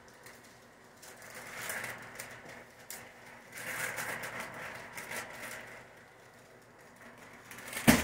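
Wrapping paper rustling and crinkling on and off as a tall wrapped gift box is handled, then one loud thump near the end as the box falls over onto the floor.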